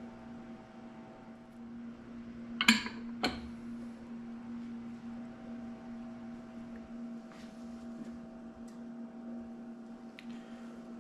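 A steady electrical hum from an appliance, with two sharp clacks a little over half a second apart about two and a half seconds in and a few light ticks later.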